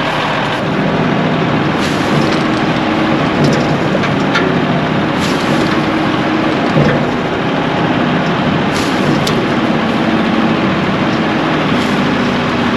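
Case 2090 tractor's diesel engine running under load while it tries to pull a stuck semi truck out with a chain. The engine note shifts a few times, with occasional clicks over the drone.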